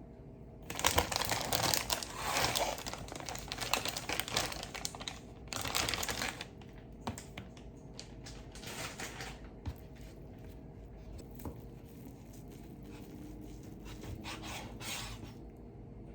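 Crinkling and rustling handling noise, dense for the first several seconds, then thinning to scattered clicks and short rustles.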